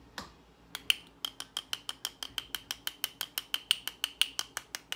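Rapid, even tapping with a slight ringing, about six or seven taps a second starting about a second in, as buffer is settled into a buckshot-loaded shotshell hull.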